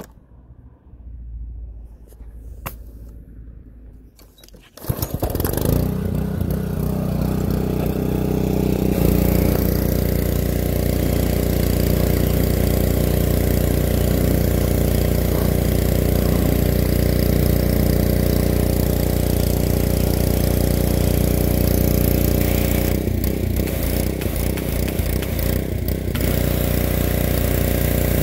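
Honda 6 hp single-cylinder engine on a pressure washer starting about five seconds in, then running steadily. From about nine seconds it runs louder as the pump drives water out of the wand under pressure, and it wavers briefly near the end.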